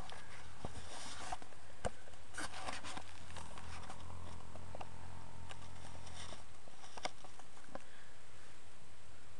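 Sleeping Missouri Fox Trotter horse giving a low hum that starts about three seconds in and lasts about three seconds. Scattered light crackles and clicks from the hay he lies in come before and after it.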